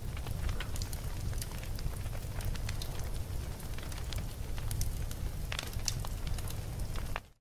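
Fire burning with a steady low rumble and scattered sharp crackles and pops; it cuts off suddenly near the end.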